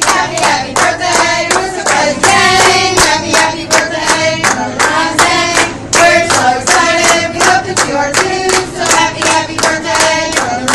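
A group clapping in a steady rhythm, about three claps a second, while singing a birthday song together.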